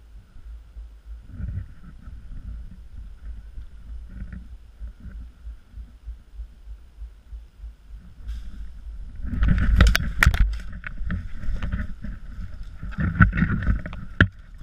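Low rumble of wind or movement on the microphone. From about nine seconds in, it is broken by clusters of loud, sharp clicks and knocks.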